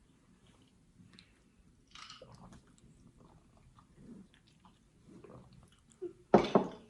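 A person chewing and biting fried food close to the microphone, with soft mouth noises and small crunches, and one louder, sudden noise near the end.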